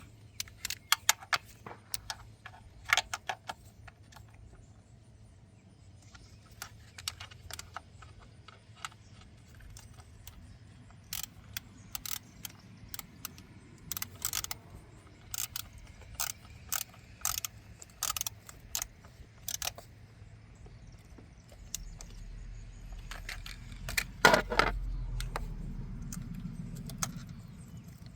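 Metal hand tools clicking and clinking as bolts on an engine are tightened by hand, in scattered single clicks and quick runs of clicks. Near the end comes a louder metallic clatter over a low rumble.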